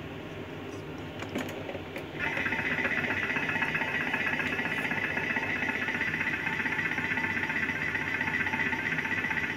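A few clicks as buttons are pressed, then about two seconds in a Thermomix starts up and runs with a steady whine.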